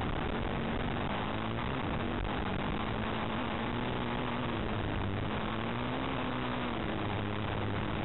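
Off-road motorcycle engine running under way on a dirt track, its revs wavering and climbing briefly about six seconds in before dropping back, under a steady rushing noise on the bike-mounted camera's microphone.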